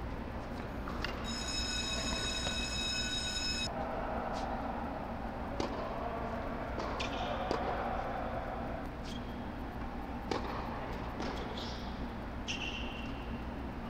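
Hard-court tennis rally: sharp racket strikes and ball bounces, with short shoe squeaks, over a steady low hum. A long, high squeal with several tones sounds for about two and a half seconds near the start.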